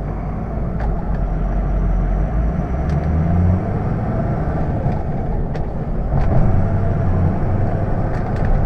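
Ford 6.0-litre Power Stroke turbo-diesel V8 pulling the truck forward in four-wheel high, heard from inside the cab. The engine note rises, falls away about three and a half seconds in, then climbs again.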